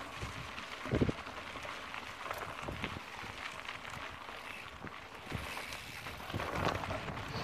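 Mountain bike rolling down a dry dirt and gravel trail: tyres crackling over loose stones, with scattered rattles and knocks from the bike over the bumps and a louder thump about a second in.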